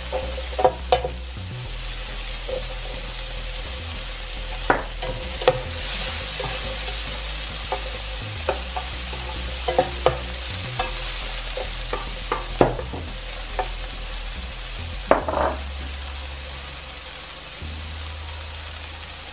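Diced mushrooms, capsicum and peas sizzling steadily in a nonstick electric frypan, with sharp taps and scrapes of a plastic slotted spatula against the pan as they are stirred, roughly one every second or so.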